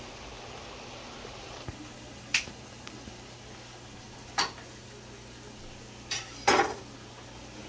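Cookware clanking: four sharp knocks of a utensil against a pot, the last two close together and the loudest near the end, over a steady low background hiss.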